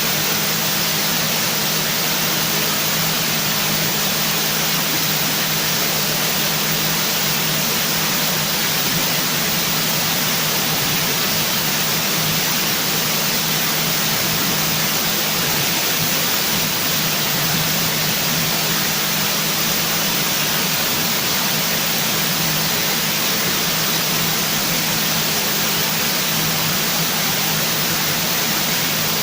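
Loud, steady hiss with a low hum underneath, unchanging throughout.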